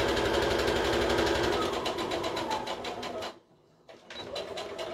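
Brother electric sewing machine stitching a seam at speed, a fast even run of needle strokes. It stops about three seconds in, then starts stitching again near the end.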